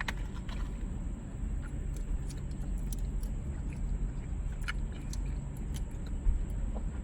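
Mouth sounds of chewing a mouthful of chewy Hi-Chew candy: scattered small wet clicks, with one sharper click near the end, over a steady low rumble.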